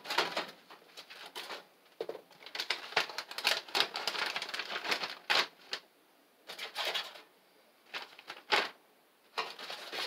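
A plastic vacuum-sealer bag crinkling and crackling in irregular bursts as it is handled and filled with Brussels sprouts, with a few sharper clicks and short pauses.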